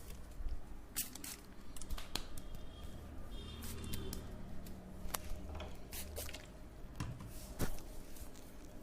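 Massage strokes on skin, with wet squishing rubs and several scattered sharp clicks.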